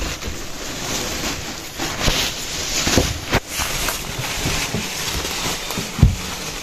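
Crinkly plastic bag and jacket fabric rustling against the phone's microphone, with a few handling knocks.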